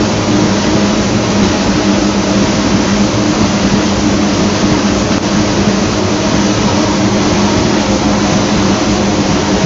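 Bizzozero Mica TC 1600 slitter-scorer with its vacuum belt feeder running: a steady, loud machine hum over an even rushing noise.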